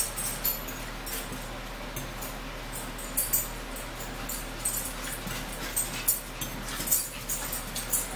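A dog whimpering, begging for food from the table, among short clinks of forks on plates. A steady low hum runs underneath.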